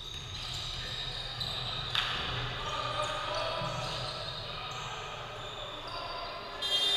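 Basketball bouncing on a hardwood gym floor, with voices echoing around the hall and a sharp knock about two seconds in. A loud high tone starts sounding just before the end.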